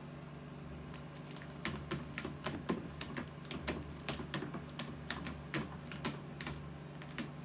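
Irregular run of light, sharp clicks and ticks from a cat working its way up a sisal-rope cat tower. The clicks start about a second in and stop shortly before the end, over a steady low hum.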